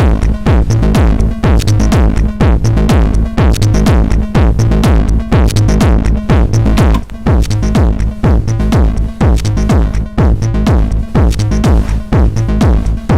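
Electronic techno-style pattern playing on a Korg Electribe ESX sampler groovebox: a steady drum-machine beat with bass and synth parts, run through an Etek Optima compressor-limiter.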